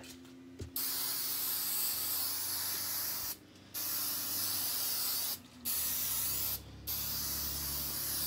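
Aerosol spray can spraying in four bursts of about one to two and a half seconds each, with short breaks between.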